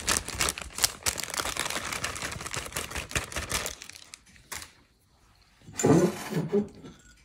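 Plastic cake-mix bag crinkling as it is shaken out over a stainless steel mixing bowl, the dry mix spilling in, for about the first four seconds. Then it goes quiet, with one short muffled sound about six seconds in.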